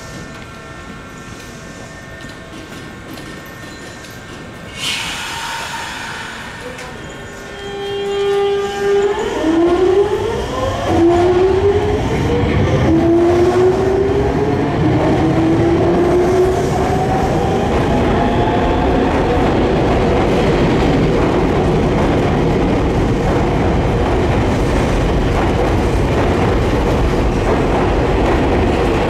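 Nankai 2000 series electric train pulling out: a short burst of air hiss about five seconds in, then the VVVF inverter motors whine in a series of rising steps as it accelerates, giving way to a steady loud rumble and clickety-clack of wheels on the rails as the cars pass.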